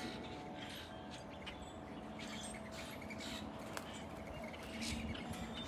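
Faint, steady low rumble of a Boeing 747-400 jet airliner passing high overhead, with short high bird chirps scattered over it.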